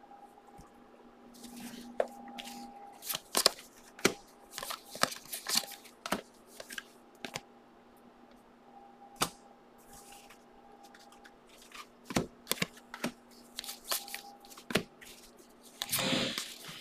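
Football trading cards being handled and flipped through by hand: irregular sharp clicks and snaps of card edges, with a short sliding rustle near the end. A faint steady hum sits underneath.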